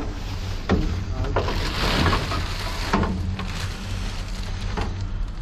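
Plastic bags, plastic wrap and crumpled paper rustling and crackling as trash is pushed aside and stepped on, with a few sharp crinkles and a steady low rumble underneath.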